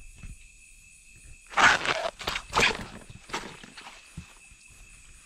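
Bare feet stepping on wet leaf litter and mud: a cluster of loud steps between about one and a half and three seconds in, then a few lighter ones.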